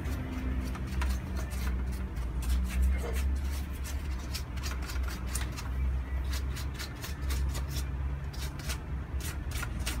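Laptop parts being cleaned of dust and cobwebs: light, irregular scratching clicks over a steady low hum.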